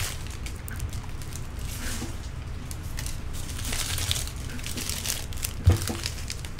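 Crinkling and rustling of empty trading-card pack wrappers being crumpled and gathered up, with a single sharp knock about five and a half seconds in.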